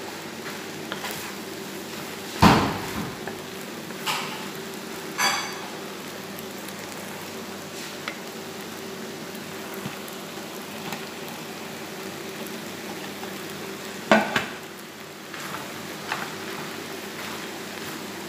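Noodles and vegetables sizzling in a frying pan as they are stir-fried with a wooden spatula, with a few sharp knocks of the spatula against the pan, the loudest about two and a half seconds in and again near fourteen seconds.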